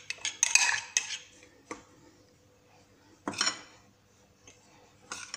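A drinking glass clinking and scraping against a ceramic dish as it scoops dry semolina. There is a cluster of clinks in the first second, then a single click, and separate knocks past three seconds and near the end.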